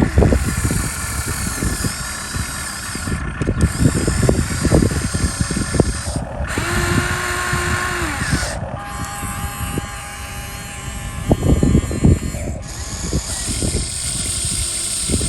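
High-pitched whine of the electric motors and hydraulic pump of a radio-controlled model excavator working, over repeated clattering knocks of soil and stones. The whine changes pitch and character abruptly several times.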